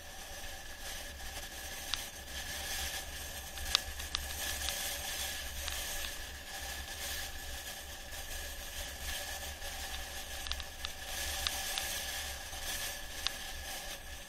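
Mountain bike coasting downhill on a concrete road: steady wind rush on the microphone and tyre noise, with a few sharp clicks and rattles from the bike and camera over bumps.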